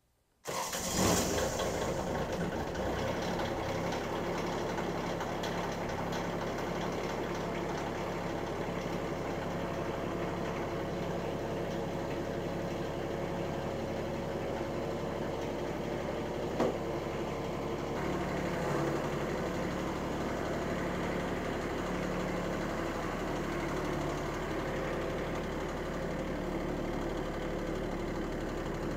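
Bobcat CT1025 subcompact tractor's three-cylinder diesel engine starting about half a second in and then running at a steady idle, with one sharp click a little past halfway.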